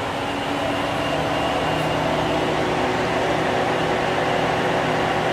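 Steady machinery hum with several steady tones over an even rushing noise, rising slightly about half a second in, from powered-up shop equipment.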